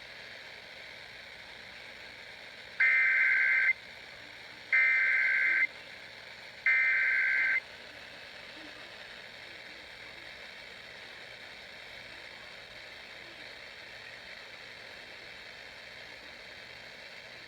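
Emergency Alert System SAME header data bursts: three identical harsh, two-tone digital screeches, each about a second long and two seconds apart, marking the start of an EAS activation. Afterwards only a faint steady hiss of broadcast background noise, with no attention tone.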